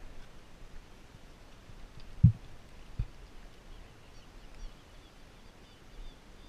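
Quiet open-marsh ambience with faint, short high bird chirps, and two dull low thumps about two and three seconds in.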